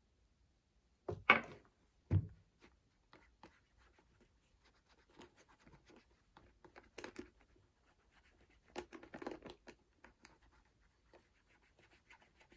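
Shoe cream being rubbed into a leather boot: faint, uneven scratching and rubbing. Two sharp knocks come a little over one and two seconds in, the first the loudest sound.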